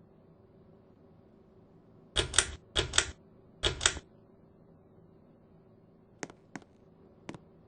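Clicking of a Harbor Breeze Classic ceiling fan's pull-chain switch: three quick double clicks in a row, then three lighter clicks near the end, over a faint steady hum.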